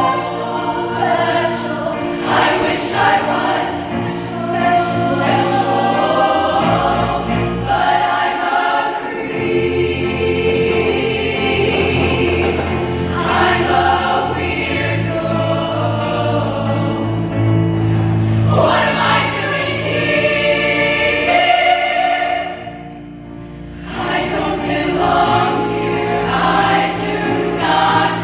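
Women's show choir singing in harmony over a low instrumental backing, with a brief quieter moment about two-thirds of the way through before the full sound comes back.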